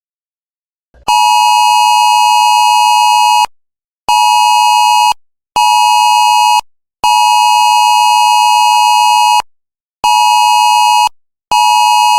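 Electronic alert tone: one steady, buzzy, mid-pitched beep repeated in six pulses, long, short, short, long, short, short.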